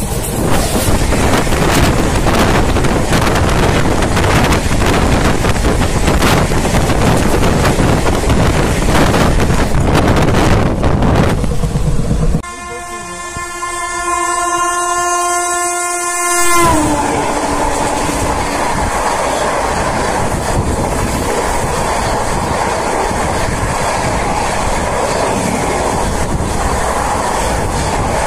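Train running at speed, its wheels giving dense rail noise streaked with quick knocks. About twelve seconds in, a train horn sounds one long steady chord for about four seconds; its pitch drops as it ends, the way a horn does as it passes. The rail noise then carries on.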